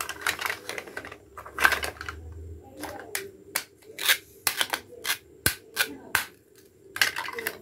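Hollow plastic toy fruit pieces clacking and tapping together as they are handled, in a dozen or so irregular sharp clicks with a few short scraping rasps. Among them, a two-piece cutting-toy fruit is pulled apart at its Velcro join.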